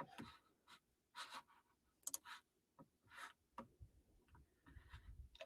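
Near silence broken by faint, scattered rustling and scratching noises: several short ones, then a longer patch near the end.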